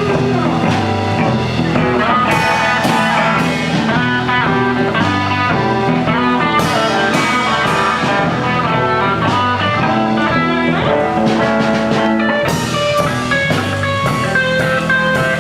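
Rock band jamming: guitars over bass and drums.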